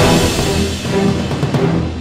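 Intro theme music, starting on a sudden loud hit after a rising swell.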